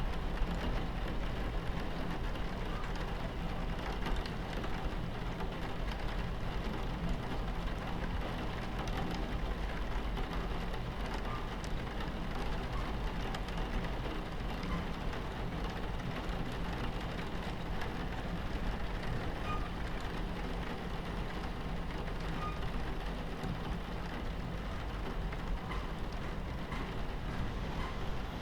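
Train ambience: a steady low rumble of a train running on the tracks, with rain pattering against the carriage window.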